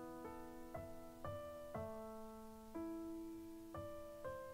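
Soft, slow piano music: gentle single notes and held chords, with a new note about every half second.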